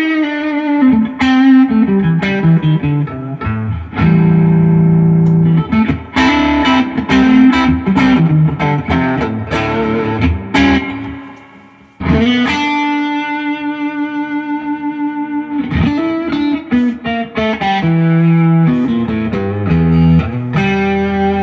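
Duesenberg Starplayer Special electric guitar played through a compressor and the AC side of an AC-RC Oz overdrive into a Fender '65 Reissue Deluxe Reverb amp, with the pickup selector in the middle position set to humbucker. Chords and single-note lines ring out, with a lightly overdriven, compressed tone. About twelve seconds in, a chord dies away almost to silence before the playing starts again.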